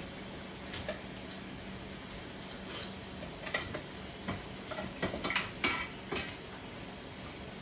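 Light metallic clicks and scrapes of a hand tool working screws out of a drop-in quad rail to split it into halves, scattered at first and bunching into a quick run of clicks about five to six seconds in.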